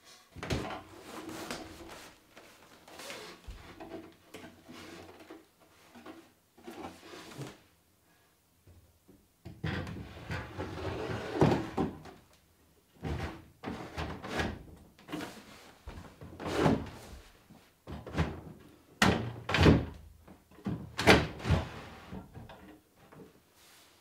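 Painted wooden dresser drawers being slid into the dresser's frame and pushed shut: wood scraping on wood, with a series of knocks and thuds as they seat, the loudest from about halfway through.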